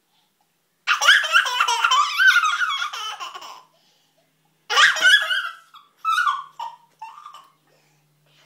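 Toddler giggling and laughing in a high-pitched voice: one long bout of laughter about a second in, then three shorter bursts.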